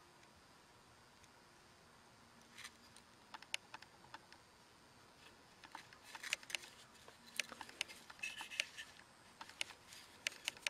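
Faint, scattered small clicks and scratches of a fixed-tip woodburning pen working over a carved tupelo duck head, growing more frequent about halfway through.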